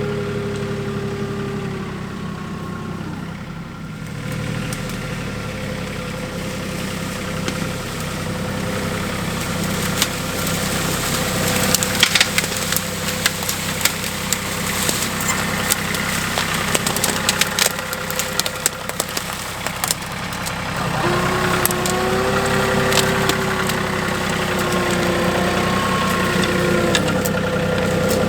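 Compact tractor engine running steadily, with a steady whine near the start and again later on, and a run of sharp wood cracks and snaps in the middle.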